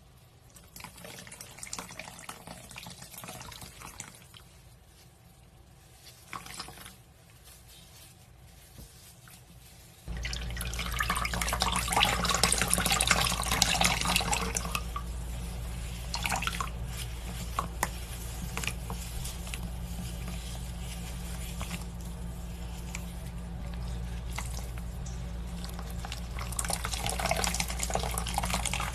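Wet, liquid sounds with drips and dribbling. About ten seconds in a steady low hum starts and the wet sounds get much louder for a few seconds, then settle.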